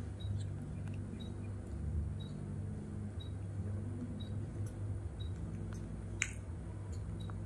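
Baby monkey suckling from a milk bottle: faint, soft sucking clicks about twice a second over a steady low hum, with one sharper click about six seconds in.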